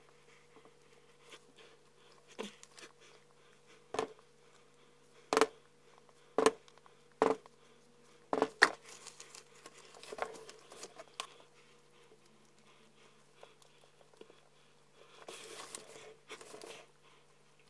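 Sharp taps and knocks of a spatula against the wooden-sided soap loaf mold while the top of freshly poured cold process soap is textured: about seven knocks spread over several seconds, then soft rustling near the end. A faint steady hum runs underneath.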